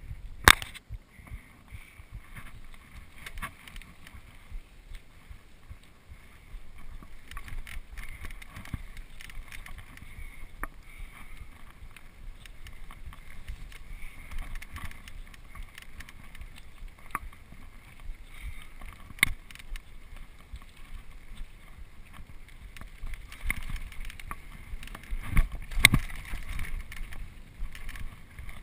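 Mountain bike ridden fast over a dirt single-track trail: a continuous rumble and rattle of tyres and frame over the rough ground, with sharp knocks from bumps, the loudest about half a second in and two more near the end.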